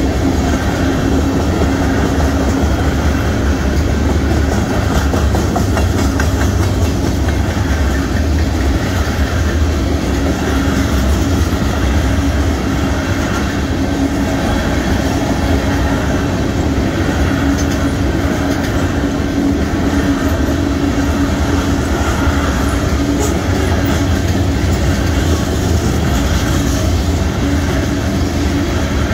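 Union Pacific freight train's tank cars and covered hoppers rolling past on the rails: a loud, continuous rumble that holds steady throughout.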